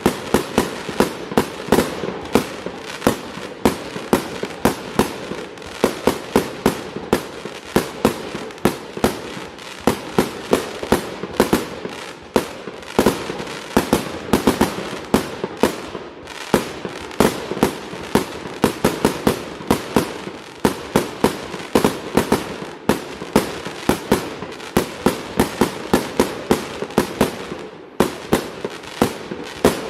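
Tormenta 36 S firework going off: a rapid, uneven run of sharp bangs, several a second, without letup, over a continuous noisy background.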